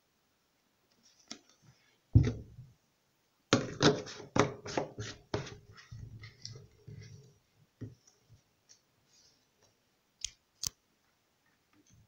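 Plastic laundry bottles handled and set down: a thump about two seconds in, then a quick run of about seven clicks and knocks, scattered lighter clicks, and two sharp clicks near the end.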